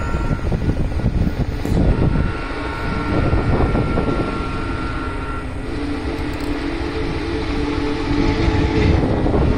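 Approaching Union Pacific Big Boy steam locomotive, not yet in sight: a steady heavy rumble, with a long chord from the train's whistle held from about halfway through.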